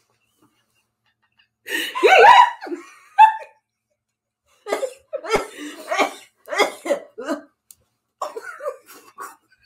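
A person's loud cough, the loudest sound here, about two seconds in. It is followed by several seconds of laughter in short, choppy bursts.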